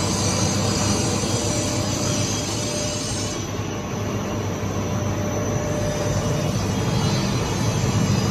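Sawdust carbonization furnace machinery running steadily, a continuous mechanical noise with a constant low hum.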